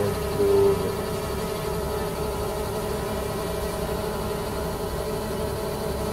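Xiaomi Mi Drone 4K quadcopter's propellers humming steadily in flight, with a brief louder tone about half a second in.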